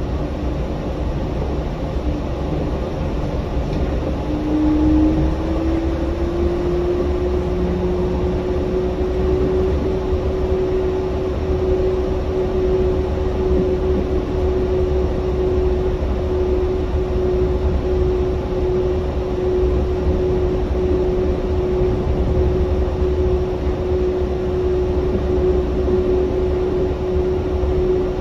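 Yurikamome rubber-tyred automated guideway train running, heard from inside the car: a steady low rumble with a motor whine that rises briefly in pitch about five seconds in, then holds steady.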